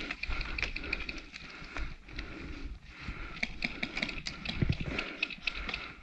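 Footsteps and gear clattering as an airsoft player moves on foot: a run of irregular knocks and clicks over a low rumble.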